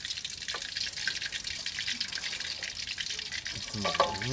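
Pieces of talang queenfish sizzling and crackling in hot oil in a wok, with a single click about half a second in; a man's voice starts near the end.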